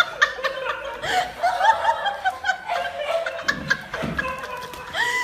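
High-pitched laughter: a rapid string of short giggling notes, about three to four a second, going on without a break.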